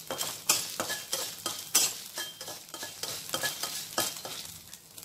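Dried red chillies frying in a pan, stirred with a spatula: repeated scraping strokes about twice a second over a light sizzle.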